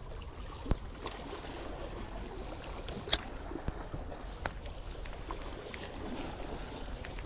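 Wind buffeting the microphone over the wash of river water, with two sharp clicks, one under a second in and one about three seconds in.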